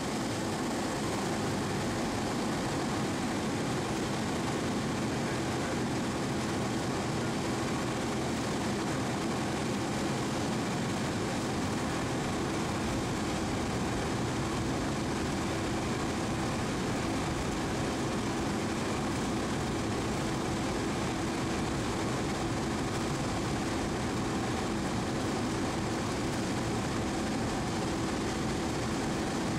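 Cessna 172's four-cylinder Lycoming IO-360 engine and propeller running at steady power, heard as a constant drone inside the cabin with a faint steady hum.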